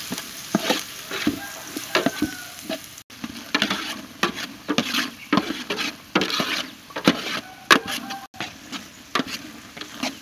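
A metal spatula scraping and clacking irregularly against the bottom and sides of a large metal pot as a seasoning paste with lemongrass is stirred and fried, the paste sizzling underneath. The sound breaks off briefly twice.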